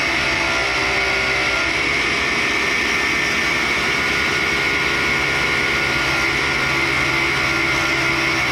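1942 Cincinnati universal tool and cutter grinder sawing through raw carbide with a thin cut-off wheel: a steady, even grinding with a high whine, and a shop vacuum running alongside to draw off the carbide dust.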